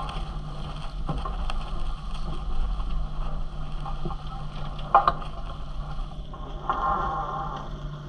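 Wind and water rushing along a Leopard 42 catamaran sailing under spinnaker, over a steady low hum. A sharp knock comes about five seconds in, and a brief pitched squeak near the end.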